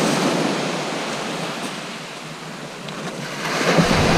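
Sea surf breaking and washing on a shingle beach, a steady rush that eases off around the middle and swells again near the end.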